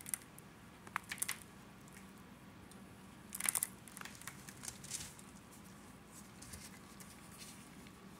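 Dry laundry cornstarch crunching and crackling, in a few clusters of short crisp crackles, the loudest about three and a half seconds in.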